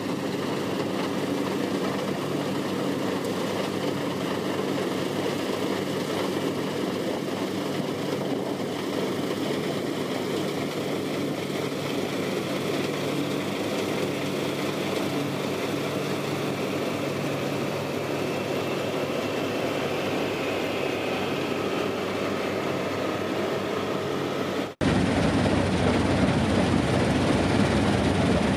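New Holland combine harvester running steadily as it harvests wheat, its engine holding an even note. Near the end the sound cuts abruptly to a louder, closer recording of the machine beside its cutting header.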